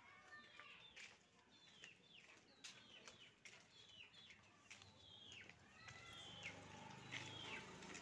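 Faint chirping of small birds: many short, quick chirps, each falling in pitch, repeated throughout. A low steady rumble comes in about six seconds in.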